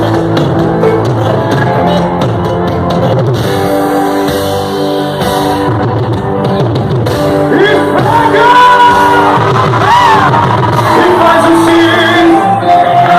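Live forró music played loud, with a singing voice and some shouting. A sung melody stands out more clearly in the second half.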